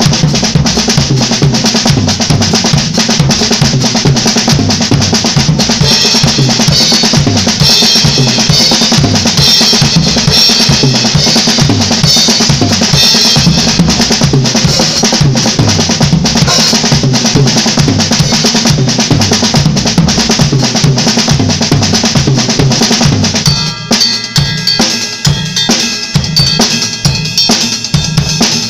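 Acoustic drum kit played fast and without a break: single paradiddle sticking moved around the snare and toms, with bass drum. About 23 seconds in, the low drum sound drops away and the playing thins into more separate, spaced hits.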